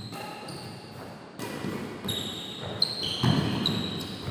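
Badminton rally: a series of sharp racquet hits on the shuttlecock and short high squeaks of shoes on the court floor, several a second apart.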